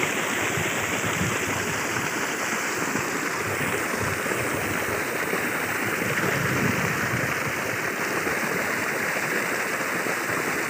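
Borewell water gushing out and running over the soil: a steady rush of flowing water.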